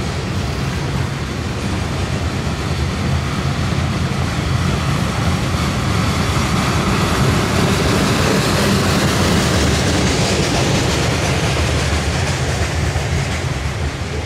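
Manifest freight train rolling past: a steady rumble of steel wheels on the rails, growing louder and hissier for a few seconds midway.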